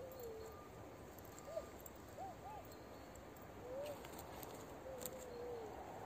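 Faint animal calls: about six short, thin, whistle-like tones that rise and fall, the last a longer wavering one sliding down.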